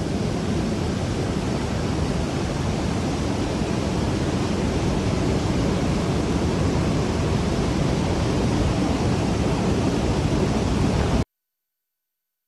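Steady loud roar of rushing air and engine noise inside the hold of a transport aircraft flying with its rear ramp open. It cuts off abruptly near the end, leaving silence.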